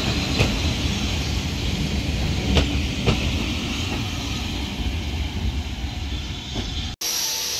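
Railway passenger coaches rolling past with a steady low rumble, and a few sharp clicks as the wheels cross rail joints. Near the end the rumble cuts off suddenly and a steady hiss takes over.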